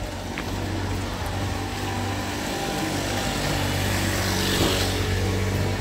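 A motor vehicle's engine running close by, a steady low hum that swells slightly about four to five seconds in.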